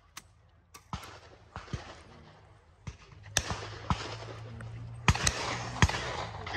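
Shotgun shots at a clay shooting ground: a string of sharp cracks, fainter ones in the first half and the two loudest near the end, under a second apart. A low steady hum sets in about halfway.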